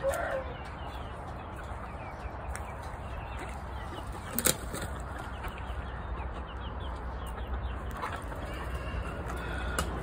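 Chickens clucking in short repeated calls over a steady low rumble, with one sharp click about four and a half seconds in.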